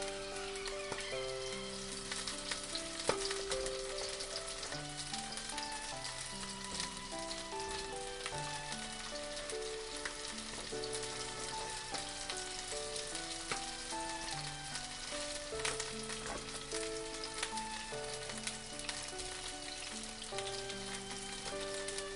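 Chicken thigh frying in a pan: steady sizzling in the hot fat with frequent small crackles. A slow, gentle background melody plays over it.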